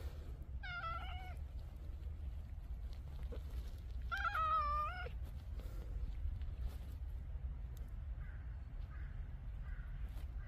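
Black-and-white cat meowing twice: a short meow about half a second in, then a longer, louder one about four seconds in.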